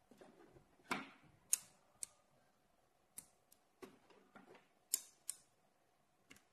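Magnetic rings and 17 mm steel balls clicking together as they are pressed into a C60 football structure: about nine sharp metallic clicks at irregular intervals, with faint handling rustle between some of them.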